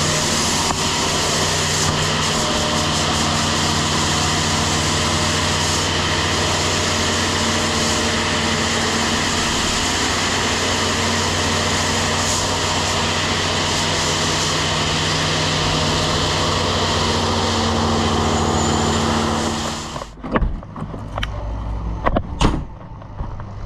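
Grain vac running steadily as it vacuums corn, a loud, even engine-like hum with a rushing hiss of air and grain. It cuts off abruptly near the end, leaving wind noise and a few sharp knocks.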